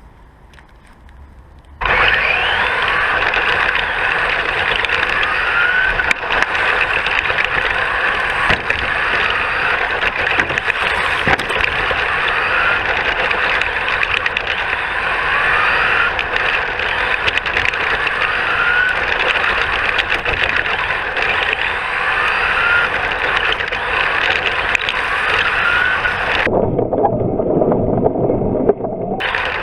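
Radio-controlled car running at speed, heard from a camera mounted on its body: a continuous motor and drivetrain whine with rattling, rising in short glides every few seconds. It comes in suddenly about two seconds in, and near the end the higher sound drops out for a couple of seconds, leaving a low rumble.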